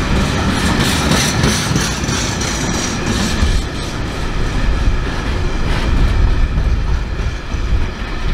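Wagons of an engineers' freight train rolling past, their wheels clattering over the rail joints. After a few seconds the clatter thins out into a lower rumble as the last wagons go by.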